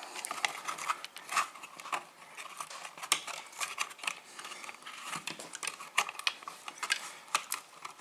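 Hands handling electrical wires in a plastic wall switch box: a steady run of small irregular clicks, rustles and scrapes as the wires are pulled and worked loose.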